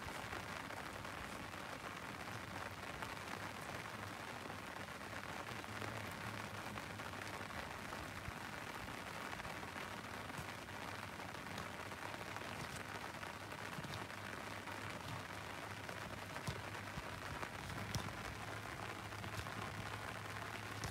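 Light drizzle falling: a steady faint hiss with a few scattered small ticks.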